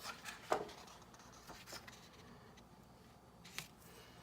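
Quiet room tone with a few faint, short clicks and rustles of handling.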